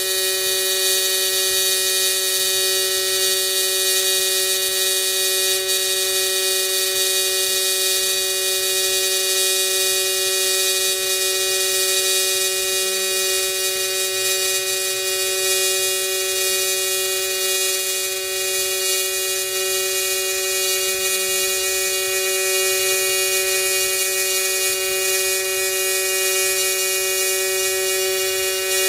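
AC TIG welding arc on thin aluminum, run from an Everlast 210EXT on a triangle waveform with the AC frequency at about 200 Hz: a steady, even-pitched buzz that does not break.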